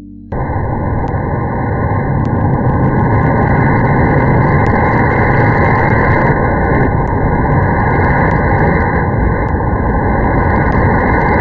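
Loud, steady rushing noise of an electric fan's airflow on the microphone, starting suddenly just after the start.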